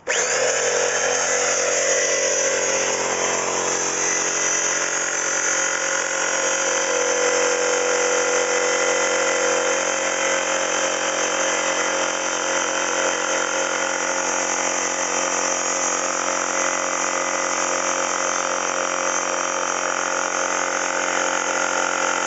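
Old electric air compressor, just reassembled, switching on abruptly as it is plugged in and then running steadily with a whining note.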